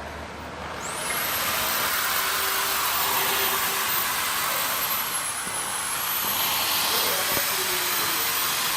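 Compressed-air blow gun hissing steadily, switched on about a second in, blowing parts clean during an engine rebuild.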